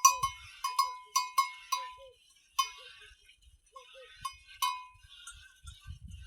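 Metal cowbell hung on a grazing cow clanking irregularly as the animal moves. There is a quick run of loud clanks, one more about two and a half seconds in, then a few fainter ones before it goes quiet.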